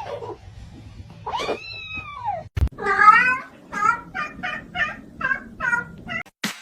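A cat meowing: two drawn-out meows rising and falling in pitch, a louder one about three seconds in, then a run of about seven short meows in quick succession, roughly two or three a second.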